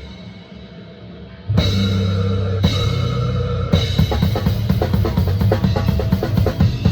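A band playing at soundcheck with a full drum kit. After about a second and a half of quieter playing, drums and sustained low pitched instruments come back in together at full volume, with fast, dense kick, snare and cymbal strokes.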